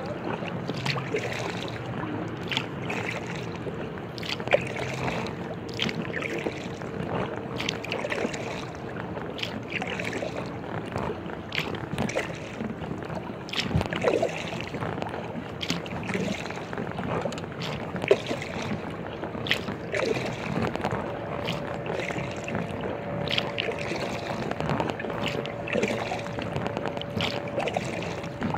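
Inflatable kayak being paddled: paddle blades dipping and splashing in a steady rhythm of roughly one stroke a second, with water sloshing against the hull.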